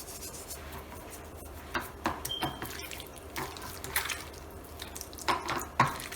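Soft wet squelches, drips and a few light taps as boneless chicken is worked by hand in squeezed lemon juice and salt.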